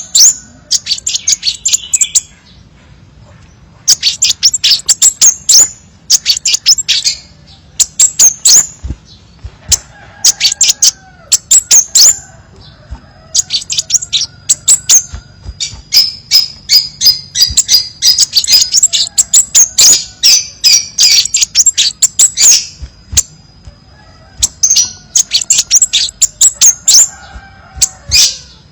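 Crimson sunbird calling: bursts of very rapid, sharp, high-pitched chips and trills, each burst lasting a second or two, with short pauses between them.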